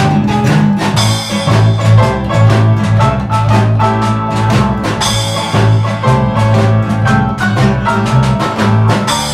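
Background music with a steady drum beat over a bass line, loud throughout.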